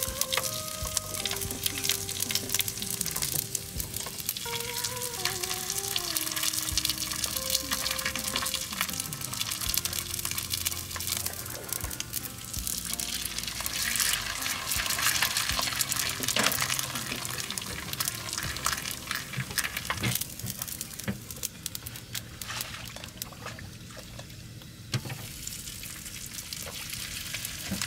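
Sun-dried fish sizzling and crackling in hot oil in a wok, with background music over it.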